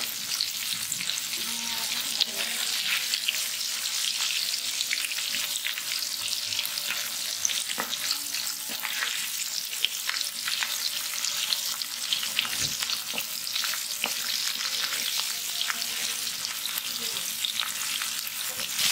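Rohu fish steaks sizzling in hot oil, a steady hiss with frequent sharp crackles and pops, while a metal turner moves and flips the pieces in the pan. The fish is being fried lightly before it goes into a curry.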